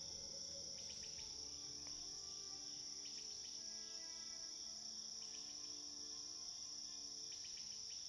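Faint, steady chirring of insects, a cricket-like chorus, with soft, quiet music notes underneath.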